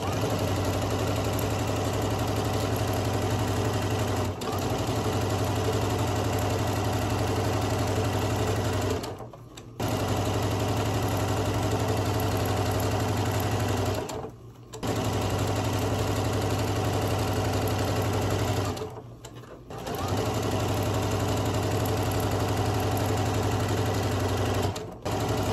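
Janome M7 sewing machine running steadily, stitching quilt patches in a chain. It stops briefly three times, about nine, fourteen and nineteen seconds in, then restarts, and it stops again just before the end.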